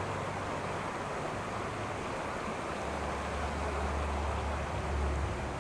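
Shallow river running over a rocky riffle, a steady rush of water, with a low hum joining about halfway through.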